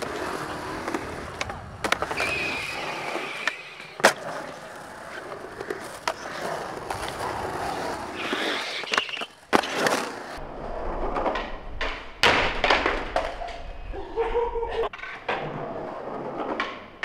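Skateboard wheels rolling on concrete, broken by several sharp clacks of the board popping and landing.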